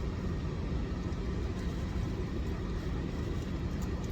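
Steady low rumble of a car, heard from inside the car's cabin.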